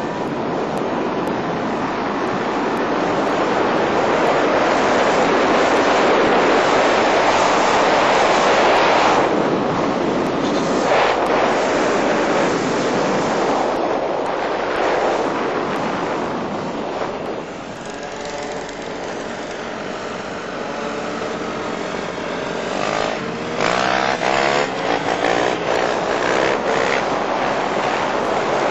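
Off-road motorcycle engines running under a loud rushing noise of wind on the microphone. In the last few seconds a bike passes close by, its engine revving up and down.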